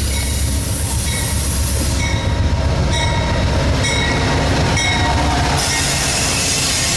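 Train rolling past at close range: a steady heavy rumble and wheel noise, with brief high squeaks from the wheels about once a second.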